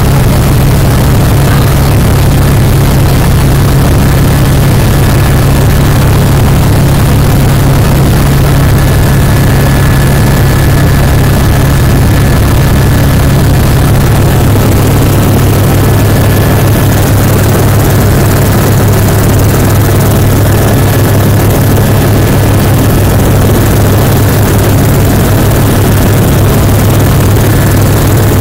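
Helicopter rotor and engine noise heard from inside the cabin: a loud, steady low drone with hiss above it. The drone's pitch drops slightly about halfway through.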